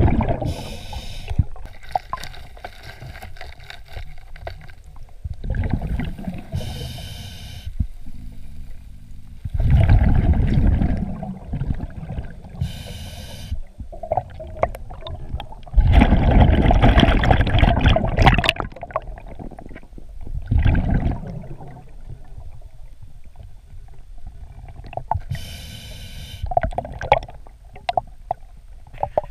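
Scuba diver breathing through a regulator underwater: short hissing inhales alternating with loud bubbling exhales, a breath every several seconds.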